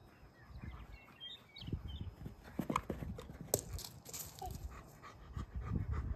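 German Shepherd panting in quick, rhythmic breaths toward the end, among scattered low thumps and sharp clicks.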